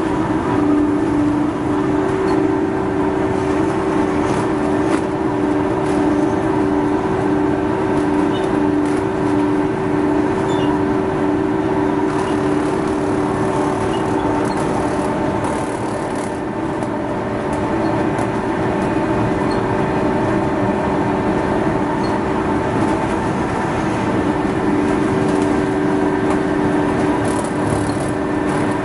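Textile waste opening machine (rag-tearing machine) running steadily as it shreds old cloth into fibre: a loud, continuous mechanical drone with a steady hum through it.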